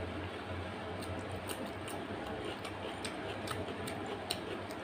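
Eating sounds from someone eating curry and rice by hand: scattered, irregular small wet clicks from chewing and lip smacking, with fingers working the rice, over a steady low hum.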